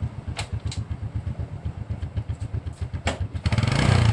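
SYM Bonus 110's single-cylinder four-stroke engine idling with a steady low putter after its clutch lining has been replaced, with a few sharp clicks, then revved up about three and a half seconds in.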